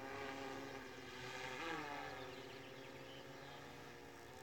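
DJI quadcopter's propellers humming faintly overhead as the drone climbs, a steady multi-toned drone with a brief wobble in pitch about a second and a half in.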